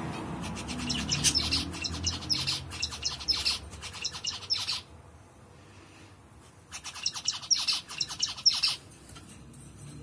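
Female albino budgerigar chattering in rapid runs of clicks and chirps. It breaks off about five seconds in and starts again nearly two seconds later.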